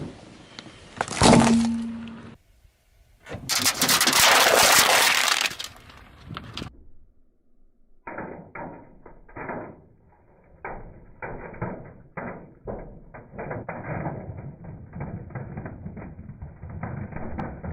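A sharp crack about a second in, then a few seconds of loud crunching and breaking as hard plastic toys are crushed under a car tyre. After a short pause, a long run of muffled, irregular clicks and taps.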